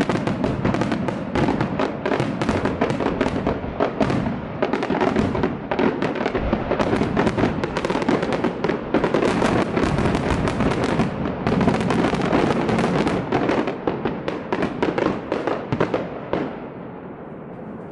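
Fireworks going off in a dense, unbroken barrage of bursts and crackles that stops about 16 seconds in, leaving a steady quieter noise.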